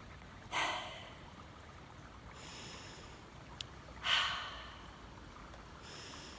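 Two short breathy exhales or sniffs by a person close to the microphone, about half a second in and again about four seconds in, with a single small click between them. Faint steady flowing water runs underneath.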